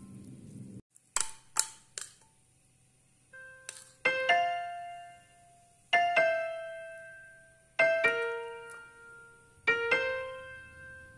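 Background piano music: slow, sparse notes or chords struck about every two seconds, each left to ring and fade. Three quick sharp clicks come about a second in, before the notes begin.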